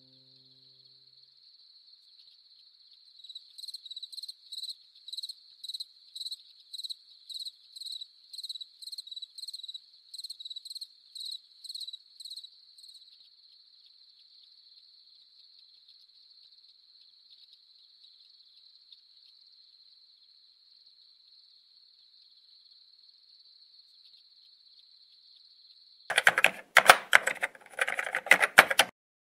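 Night insects: crickets keep up a steady high trill, and for about ten seconds a louder insect chirp pulses about twice a second over it. Near the end comes a loud burst of rapid clicking lasting about three seconds.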